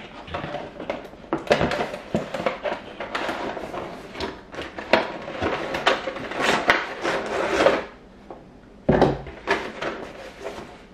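Cardboard packaging being handled and opened: an inner box scraping and sliding out of its cardboard sleeve, with rustling and light knocks for about eight seconds. A low thump follows about nine seconds in, then a few soft clicks.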